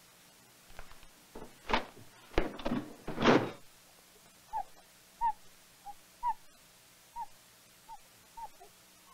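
A few loud scuffs and knocks of movement. Then a bird calls: about seven short, slightly falling whistled notes, roughly one every 0.7 seconds.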